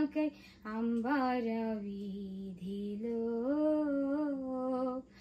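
A woman's voice singing a Telugu Christian song unaccompanied, holding long notes with slow pitch bends in a few phrases separated by short breaths.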